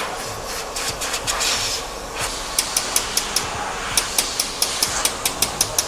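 Rapid, regular sharp clicking from a hand tool working at the top frame of an aluminium sliding door, about five clicks a second. It starts about two and a half seconds in, pauses briefly, then runs on, over a steady hiss.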